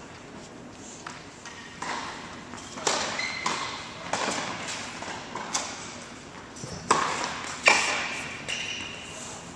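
Tennis balls struck by rackets and bouncing on a hard court, a series of sharp pocks about a second apart with a hall echo after each, the loudest near the end.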